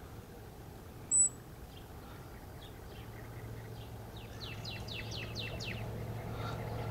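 A small bird sings a quick run of about seven high, down-slurred notes about four and a half seconds in, with faint scattered chirps before it. A short high beep about a second in is the loudest thing heard.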